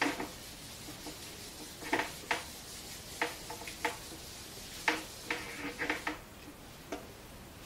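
Handheld whiteboard eraser wiping across a whiteboard: a series of short, irregular swipes and knocks, about a dozen, stopping near the end.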